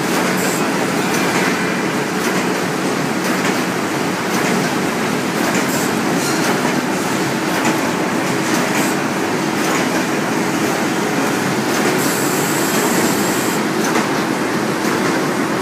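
Cuir corrugated-board printing machine running in production: a loud, steady mechanical clatter and hum with scattered light ticks. A brief high hiss comes in about twelve seconds in.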